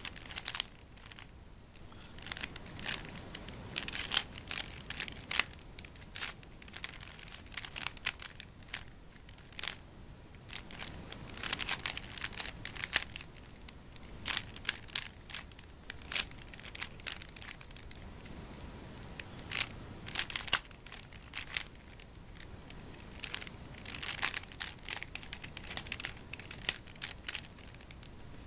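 Rubik's cube being solved: its plastic layers turned quickly, clacking in bursts of rapid clicks with short pauses between them.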